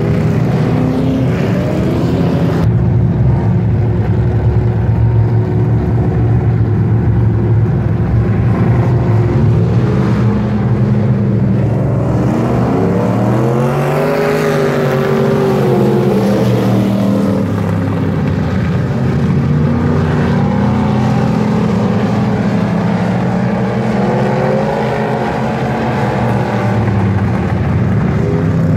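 Several dirt-track race car engines running hard as a pack laps the oval. About fourteen seconds in, one car passes close and its engine note rises and then falls.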